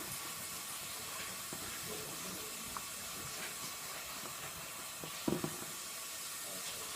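Tap water running steadily into a sink while hands are washed under it, with a brief knock about five seconds in.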